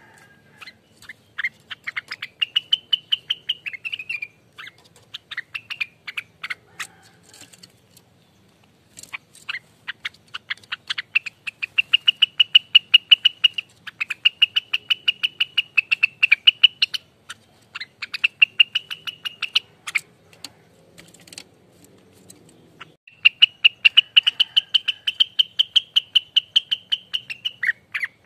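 Rengganis bird singing its rapid rolling song: long trills of fast, evenly repeated short notes, in phrases of several seconds separated by brief pauses.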